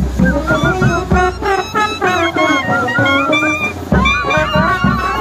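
Indian wedding brass band playing a loud melody on brass and reed instruments over a steady drum beat.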